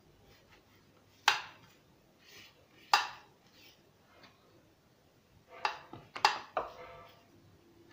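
Sharp clinks of an aluminium baking tray and a pastry brush while melted butter is brushed over a sheet of phyllo pastry: two single clinks, then a quick run of four or five near the end.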